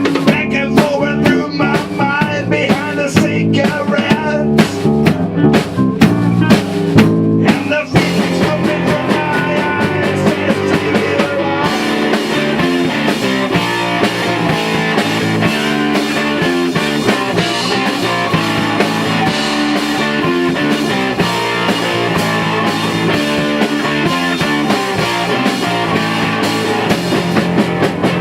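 Rock band playing with drums and guitar. A bending, wavering lead line sits over the band for about the first eight seconds, then the sound turns denser and more even, with heavier cymbals, for the rest.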